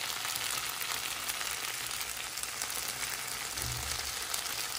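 Fusilli pasta in a tomato and green-pepper sauce sizzling steadily in a frying pan.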